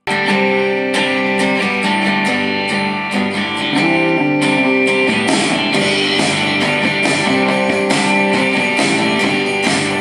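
A guitar-led song with strummed guitar and a steady beat, played at full volume through an LG PH1 portable Bluetooth speaker. The song cuts in abruptly as the one before it ends.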